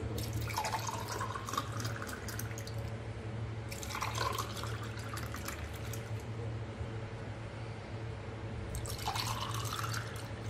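Milk sherbet poured from a jug into drinking glasses three times, each pour rising in pitch as the glass fills.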